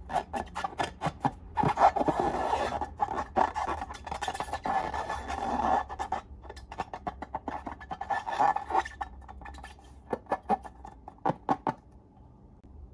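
Slime being squished and stretched by hand, a dense sticky crackling and popping that thins to separate clicks after about six seconds and stops near the end.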